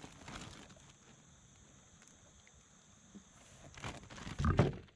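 Clear zip-top plastic bag crinkling as it is handled, with faint rustles at first and a louder burst of crinkling and handling noise near the end.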